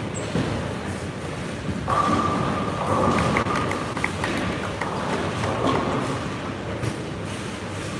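Busy bowling alley: balls rolling down the lanes and pins being knocked down, a few light knocks and pings. A steady tone joins the noise about two seconds in.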